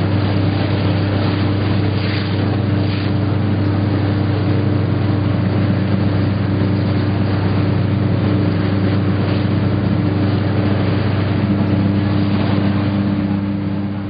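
Motorboat under way at steady speed: the engine's low, even hum with water rushing and splashing along the hull. It begins to fade out at the very end.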